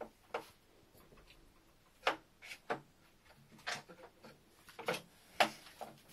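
A chestnut knocking and clicking on a tile floor as a West Highland white terrier puppy paws and mouths it. The clicks are sharp, short and irregular, about ten of them.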